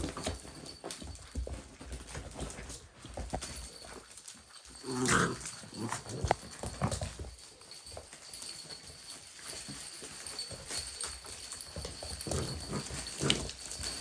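Puppies moving about, with many scattered sharp clicks and knocks and a louder pitched call about five seconds in.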